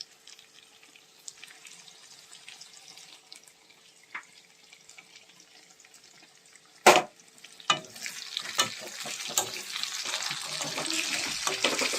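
Chicken frying in oil in a karahi: a faint crackle at first, then a sharp clank about seven seconds in, a few knocks of a utensil on the pan, and a sizzle that grows louder toward the end.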